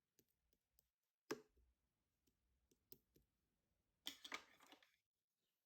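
Faint scattered clicks and light taps of small objects being handled, with one sharper click about a second in and a short rustle near four seconds.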